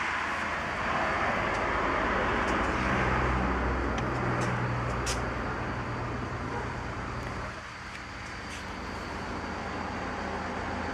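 Steady motor-vehicle and traffic noise with a low engine hum that stops about seven and a half seconds in, and a few light clicks.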